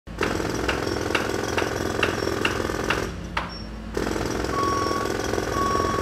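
Jackhammer hammering in fast, even strokes. It stops for about a second near the middle, then starts again. A short beep repeats a few times in the second half.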